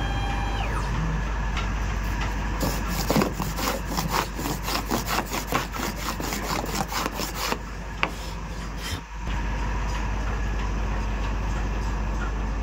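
A hand sweeping sawdust off a freshly CNC-routed fretwork board: a quick run of rubbing strokes, about three or four a second, for roughly five seconds, then a single sharp click. A steady machine hum from the CNC router runs underneath.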